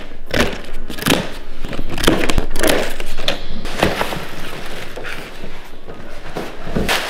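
Unboxing a compressor fridge: cardboard box flaps scraping and thudding as the fridge is lifted out, with its plastic wrapping crackling and several sharp knocks.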